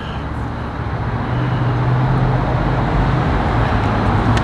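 Road traffic noise: a motor vehicle's engine rumbling with a low hum, growing louder about a second in and then holding steady.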